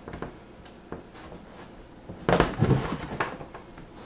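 Wooden trim molding being worked into place against the base of a kitchen cabinet: scattered light knocks and scrapes, with a louder cluster of knocks a little past halfway.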